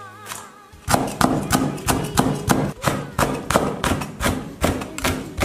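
Cleaver chopping red chili peppers on a cutting board: sharp, evenly spaced knocks, about three a second, starting about a second in.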